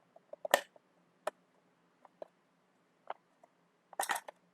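Small plastic toy parts clicking and knocking as they are handled and fitted into a plastic display chest. A louder clatter comes about half a second in and again near the end, with sparse single clicks between.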